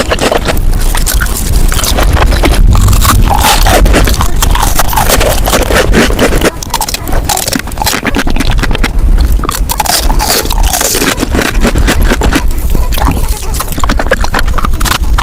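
Eating sounds played back sped up: a rapid, dense run of crunches, clicks and scraping from food being bitten and chewed.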